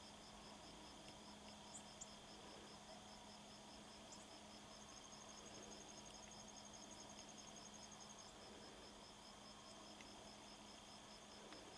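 Faint insects chirping in a steady rhythm, about five chirps a second, with a second, higher and faster pulsing that joins for about three seconds in the middle.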